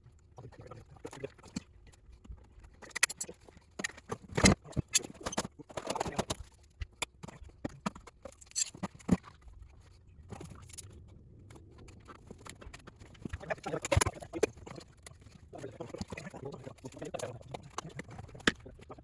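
Irregular clicks, clinks and knocks of hand tools and metal parts during disassembly work on a car's front end, with a few sharper knocks standing out.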